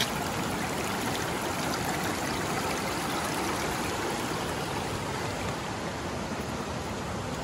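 Creek water flowing in a steady rush.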